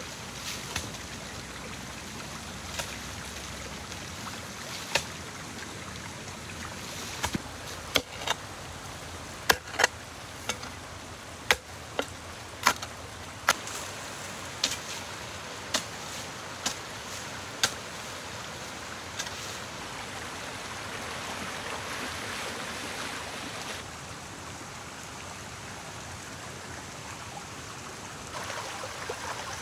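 A series of sharp knocks, about eighteen struck at irregular intervals of roughly half a second to two seconds over the first eighteen seconds, then stopping, over a steady rushing background noise.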